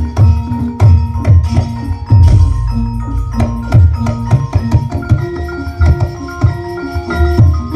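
Music played through a large sound system with 30 subwoofers during a sound check: heavy bass under a quick percussive beat, with a melody of short, stepped notes.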